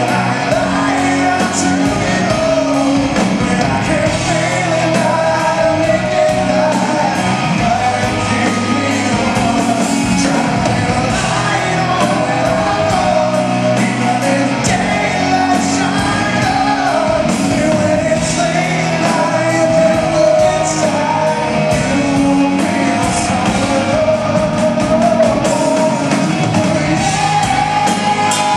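Live rock band playing with a male lead singer, heard from the audience in a large hall.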